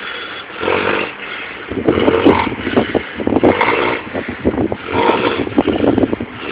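A person snoring loudly, several rough, rattling snores in a row.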